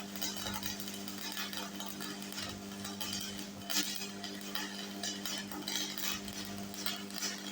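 Stick-welding arc from a 6013 electrode burning in a continuous irregular crackle, over the steady hum of the Thunderbolt 255 welding machine.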